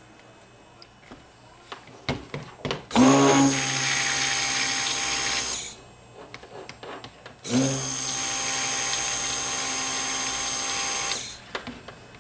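Stick blender run in two bursts of about three and four seconds, each spinning up quickly and then running steadily, blending pink cold-process soap batter smooth. A few knocks come just before the first burst.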